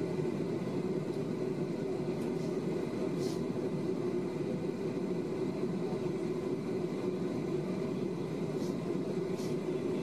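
Steady low drone inside the cabin of a Boeing 737 taxiing, its engines and air conditioning running, with two faint brief hisses about three seconds in and near the end.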